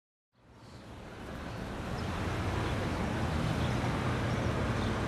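Street ambience fading in over about the first two seconds, then holding steady: a low rumble of traffic and general city noise.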